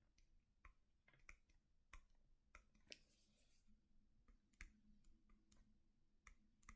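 Near silence broken by faint, irregular clicks and taps, about one or two a second, with a brief faint scratchy hiss about three seconds in.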